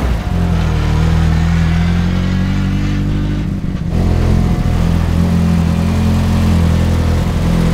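BAC Mono single-seater's four-cylinder engine running steadily at low revs as the car rolls along, with a brief dip and change in note a little after halfway.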